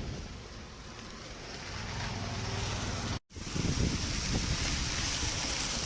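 Steady road noise from a moving vehicle with wind buffeting the microphone, cutting out suddenly for a moment about three seconds in, then coming back louder.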